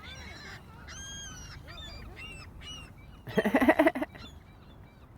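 Gulls calling: a string of high, arching cries over the first few seconds, then a loud burst of rapid, harsh calls lasting under a second, a little past the middle.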